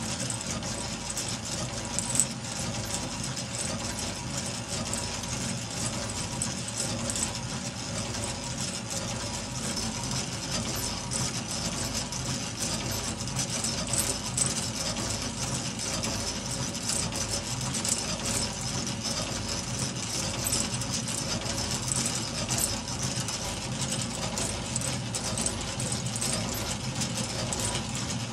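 Meccano model twin-cylinder steam engine running steadily: the whir and light rattle of its metal strips, rods, crankshaft, flywheel and governor turning, with a faint regular beat. One small knock about two seconds in.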